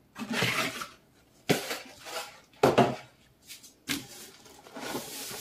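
Hands rummaging in the cardboard box of a boxed blender: rustling packing with a few sharp knocks and clinks from the parts inside, then a longer steady rustle near the end.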